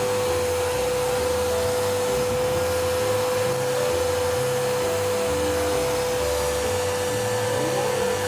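YINO life L1 pet grooming vacuum running steadily, a constant rushing of air with a steady motor whine.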